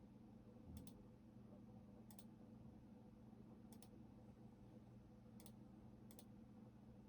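Faint, sparse clicks of someone working at a computer: five quick double ticks, each a press and release, spaced about one to one and a half seconds apart, with a soft thump near the first one. A low steady hum runs underneath.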